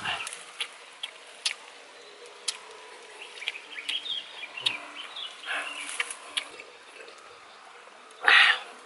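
Scattered sharp clicks and light knocks of a bamboo tube being handled and pried open by hand, with faint bird or insect chirps behind. Near the end comes one short, loud rasping noise.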